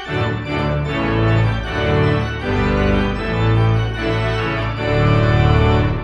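Outro music: loud sustained organ chords changing about once a second.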